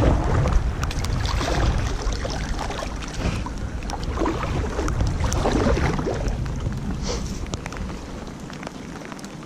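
Kayak paddle strokes splashing in canal water as an inflatable kayak is paddled in towards the bank, over a low rumble on the camera's microphone that eases off near the end.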